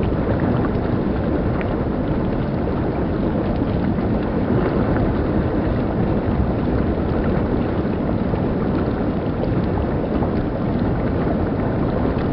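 Shallow stream rushing steadily over rocks: a constant rushing of water that cuts in suddenly.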